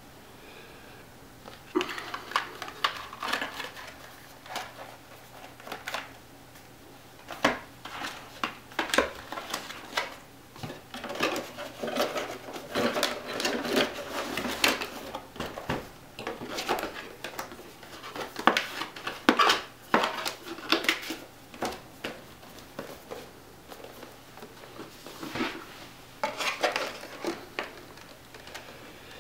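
Cardboard boxes and plastic packaging for computer case fans being opened and handled: irregular rustling, clicks and knocks of hard small parts, with a lull about two-thirds of the way through.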